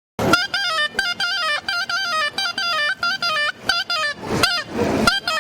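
Short outro music: a fast melody of quick stepping notes, with a couple of whooshes near the end.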